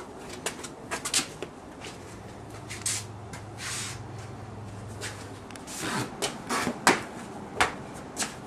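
Door being handled: a scatter of sharp clicks and knocks, with a couple of brief rustles about three seconds in and a faint low hum through the middle.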